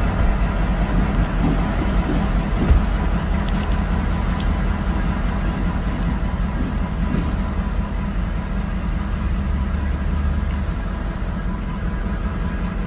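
Norfolk Southern diesel-electric locomotive engine running with a steady low drone as the unit rolls slowly away along the yard track, the sound slowly fading. A single sharp knock about three seconds in.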